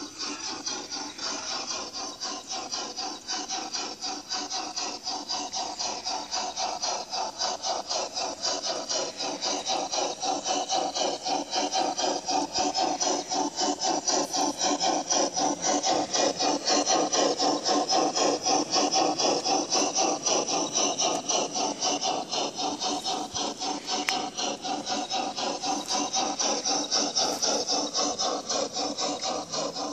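Steam-locomotive chuffing from the onboard sound system of a G-scale Bachmann Spectrum 2-6-6-2 Mallet model as it runs, a fast, even beat of rasping puffs. It grows louder toward the middle and fades a little near the end as the locomotive passes.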